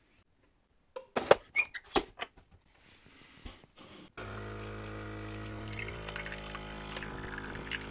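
Pod espresso machine: a few sharp clicks and knocks as the pod holder is shut, then, about four seconds in, its pump starts a steady hum while coffee pours into the cup.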